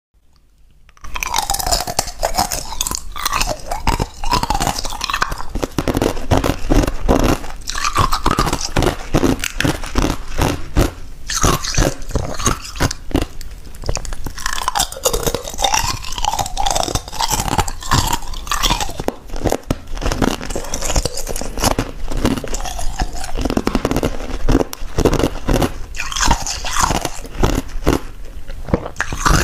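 Thin hemispherical ice shells being bitten and chewed close to a clip-on microphone: dense, continuous crunching and crackling of brittle ice, starting about a second in.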